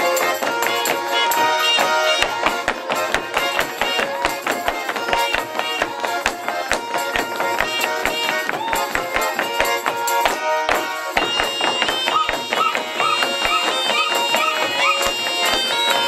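Russian folk ensemble playing lively traditional music on button accordion, folk pipes and a plucked balalaika-type string instrument, with a steady beat of knocks, likely stamping or percussion, through the middle.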